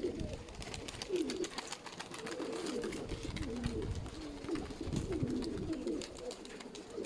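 Domestic sickle pigeons cooing, several birds calling over one another in repeated low, wavering coos, with scattered faint clicks.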